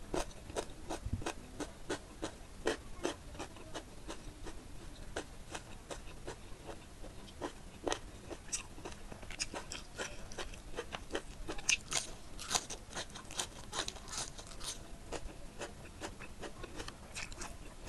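Close-miked eating: a crunchy bite of a raw green vegetable at the start, then chewing with many small wet mouth clicks, and fingers squishing rice and curry on the plate.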